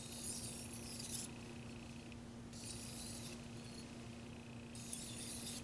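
Steel knife blade scraping along a 2000-grit water stone in three strokes, each a short gritty hiss, while the burr is being worked off the edge of a Tojiro white-steel petty knife.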